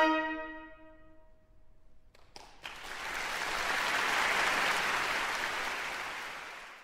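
The concert band's final sustained chord dies away over about a second. After a brief silence, audience applause swells and then fades out near the end.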